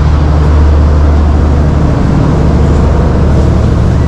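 A vehicle's engine running steadily: a constant low drone with a rushing noise over it, as heard while riding along.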